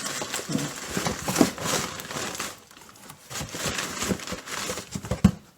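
Packing material crinkling and rustling as an item is unwrapped from a shipping box, in uneven handfuls with a short pause partway through. A sharp knock near the end.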